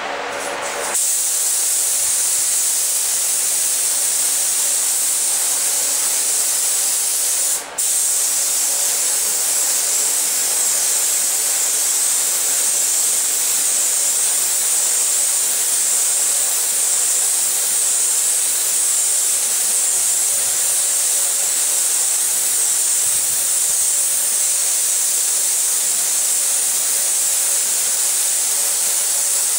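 Paint spray gun spraying with a steady, high hiss that starts about a second in, with one very brief break about eight seconds in.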